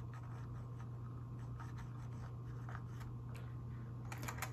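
Faint scratching and light clicks of a hot glue gun and small plastic parts being handled as glue is laid along a repaired joint, with a short cluster of clicks near the end, over a steady low hum.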